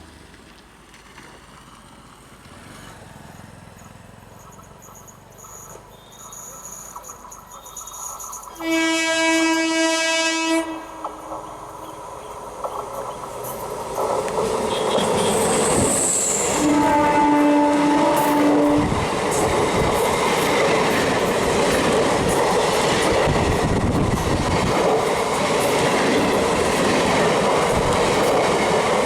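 Indian Railways electric multiple unit (EMU) local trains. A loud horn blast comes about nine seconds in and lasts nearly two seconds, and a second, slightly lower horn sounds about seventeen seconds in. From about fourteen seconds on, a train runs past close by with loud, steady noise from its wheels on the rails.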